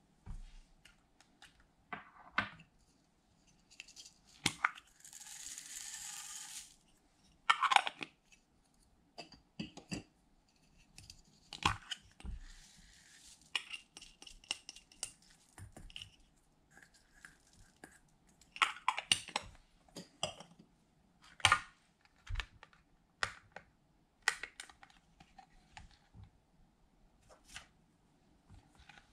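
Hands handling small plastic jars and a makeup palette over glass baking dishes: scattered clicks, taps and rustles of lids and cases, and small foam beads poured into a dish. One steady, hissing pour lasts about two seconds, starting around five seconds in.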